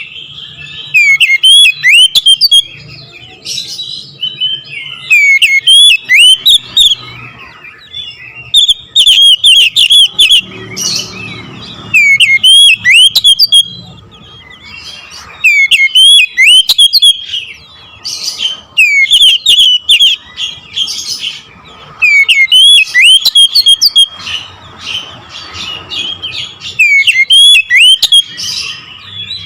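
Oriental magpie-robin (kacer) in full song: loud bursts of rapid, sharp chirps and whistles, delivered in short phrases a second or two apart with brief quieter gaps between them, the rapid-fire 'nembak' style that keepers prize.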